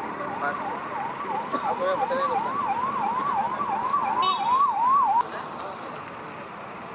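Electronic siren wailing in quick up-and-down sweeps, about two and a half a second, cutting off suddenly about five seconds in.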